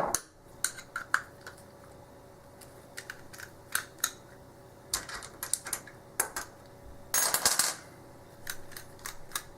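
Scattered small metallic clicks and taps, with a longer scraping rasp about seven seconds in: a Phillips screwdriver working on an aluminium-bodied American A1100 padlock to take it apart.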